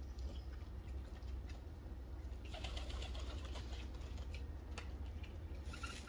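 Racing homer pigeons flapping their wings in a short burst about two and a half seconds in, with a shorter flutter near the end, over a steady low rumble.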